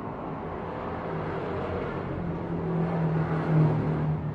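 Cessna 172M Skyhawk's four-cylinder piston engine and propeller passing overhead: a steady low hum that grows louder after about two seconds.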